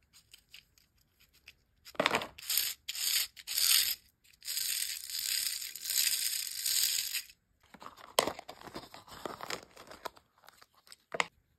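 Small hard-plastic toy pieces handled and worked: faint clicks, then a run of scraping, rustling strokes and a steady stretch of nearly three seconds of rasping noise, then the rubbing and snap of a plastic egg capsule being opened near the end.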